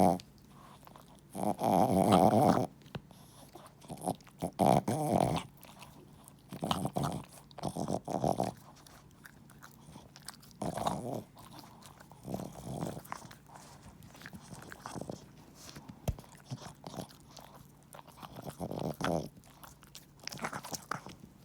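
Boston terrier snoring: rattling snorts that come every two to three seconds, the first few the loudest.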